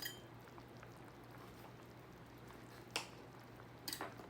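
Kitchen handling sounds of fruit and utensils being set on a platter: a single sharp tap about three seconds in and a quick double tap about a second later, over a faint steady low hum.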